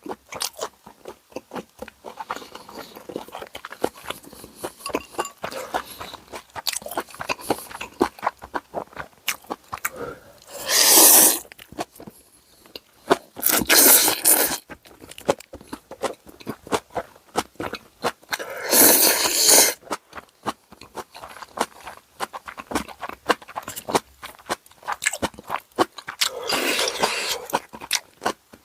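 Close-miked eating of tonkotsu ramen and crispy karaage: steady crunchy chewing and biting, with four louder slurps of about a second each, from about ten seconds in to near the end.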